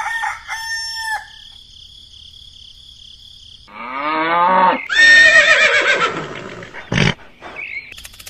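Farm-animal sound effects. Short chirping calls in the first second, another animal call about four seconds in, then a loud rooster crow about five seconds in, with a steady high trill underneath.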